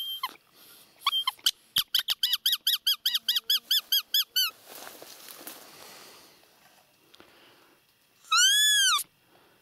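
Roe deer call (a hand-blown squeaker) sounded in a quick run of short squeaks, about five a second, each rising and falling in pitch; near the end comes one longer squeak that rises and falls. The call imitates a roe deer's squeak, blown to lure deer during the rut.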